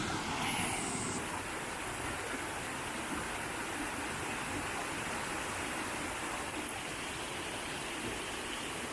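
Steady rush of fast-flowing water: a monsoon-swollen stream pouring forcefully into a small plunge pool.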